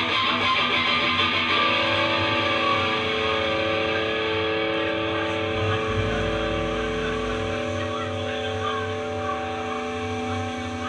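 Live rock band playing, with amplified guitars holding long, ringing chords. A deep bass note sounds about six seconds in.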